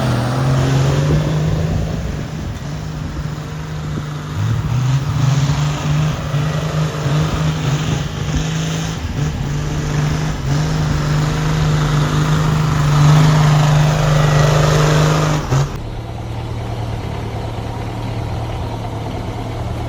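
Off-road vehicle's engine running hard under load, its pitch rising and easing with the throttle as it works over the course. About sixteen seconds in it cuts off suddenly, leaving a quieter, steady engine hum.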